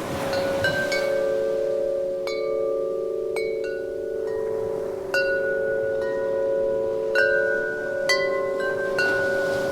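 Metal wind chime struck at irregular moments, about ten strikes, each leaving clear overlapping tones that ring on for several seconds.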